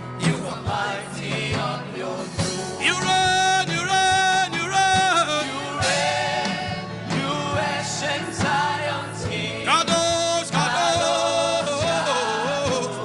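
Gospel worship music: a voice sings long held notes over a steady backing.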